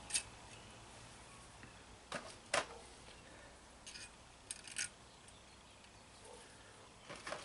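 A handful of small, sharp metallic clicks and taps as small metal rings are fitted into a Chevy TBI's injector seat, the loudest about two and a half seconds in.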